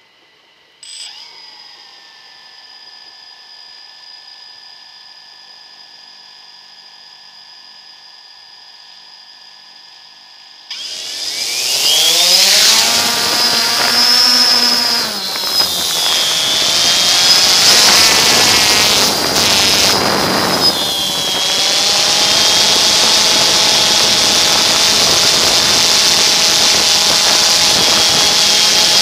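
A faint steady whine, then about eleven seconds in the DJI Phantom 2 quadcopter's motors and propellers spool up loudly for takeoff, heard from the camera on board. The whirr rises in pitch and wavers up and down as the drone climbs, then settles into a steady high whirr.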